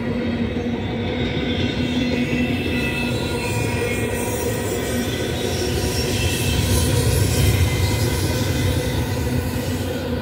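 BNSF double-stack intermodal container cars rolling past: a steady rumble of steel wheels on rail, with a faint steady whine above it, swelling a little about three-quarters of the way through.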